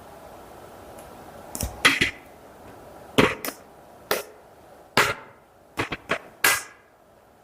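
A series of about eight sharp knocks and clacks, irregularly spaced, some ringing briefly, over a faint steady hum.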